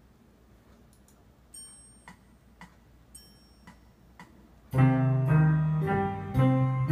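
A metronome ticking a count-in, about two beats a second with a brighter ring on every third beat, then an electronic keyboard in its piano voice comes in much louder, playing low held chords under a simple melody.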